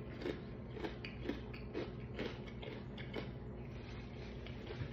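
A person chewing a mouthful of fried chicken with the mouth closed: soft, regular chews about twice a second.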